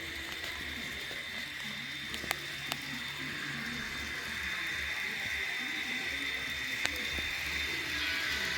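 Kato N-scale model diesel locomotives running on track: a steady whine from the small motors and gears, with a few sharp clicks. The sound grows louder toward the end.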